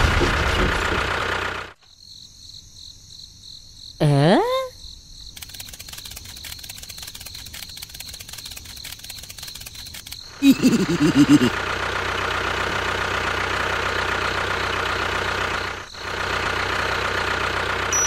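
A small engine or motor running steadily, with a short swooping whistle about four seconds in and a louder burst about ten and a half seconds in.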